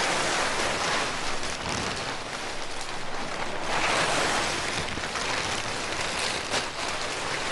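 Black plastic sheeting rustling as it is pulled off a parked motorcycle, loudest near the start and again about four seconds in.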